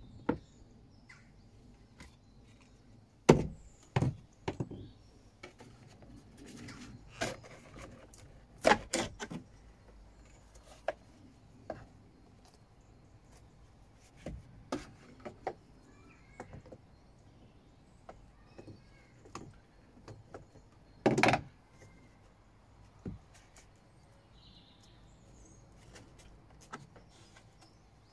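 Scattered knocks, clunks and thuds of hands working old gauges and a plastic instrument housing out of a fibreglass boat dashboard, with the sharpest thuds a few seconds in, around nine seconds in and about two-thirds of the way through.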